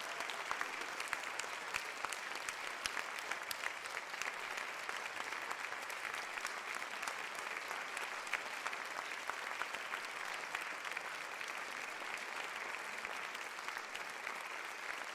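Crowd applauding: many people clapping together in a dense, steady patter of claps.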